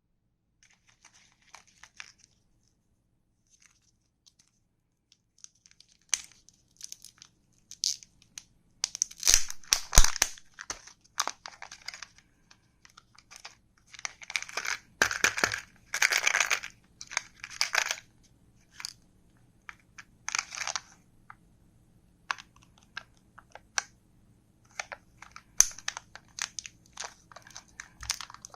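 Candy wrappers crinkling and tearing as they are unwrapped by hand, in irregular bursts with short pauses.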